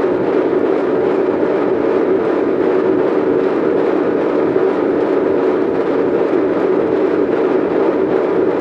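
Top-loading washing machine agitating a load of golf balls in soapy water: steady churning and sloshing with a dense clatter of balls knocking against the tub.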